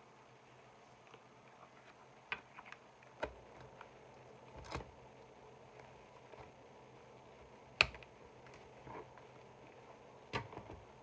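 Faint handling of a leather ring planner and its paper inserts on a table: a handful of scattered taps and clicks, the sharpest about eight seconds in.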